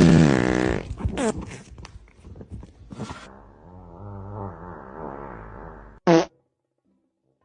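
Farting sounds: a loud, drawn-out one falling in pitch at the start, scattered clicks, then a lower wavering drawn-out sound and a short sharp blast about six seconds in, after which the sound cuts off suddenly.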